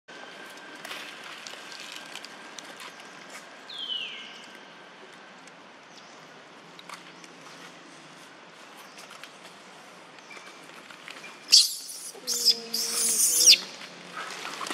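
Outdoor ambience with one short falling chirp about four seconds in, then, near the end, about two seconds of loud, shrill squealing cries from a monkey.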